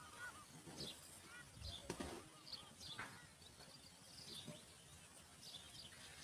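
Faint, short bird chirps scattered through, roughly one or two a second, over a low background hiss.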